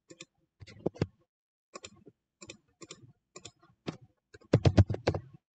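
Computer keyboard keys and mouse buttons clicking: scattered single clicks, then a quick run of louder keystrokes about four and a half seconds in.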